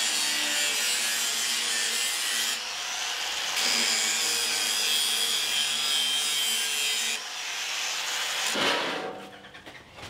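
Angle grinder grinding the tops of steel ribs down to bare, shiny steel ready for welding: a steady high grinding with a few shifts in tone as it bites. It stops about eight and a half seconds in.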